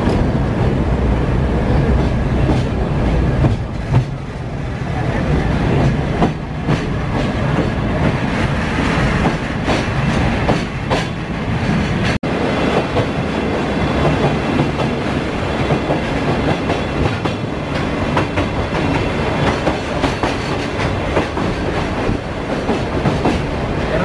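Sagano scenic trolley train running along the line, heard from inside a passenger car: a steady rumble of the wheels on the rails with continual clickety-clack. It is passing through a tunnel.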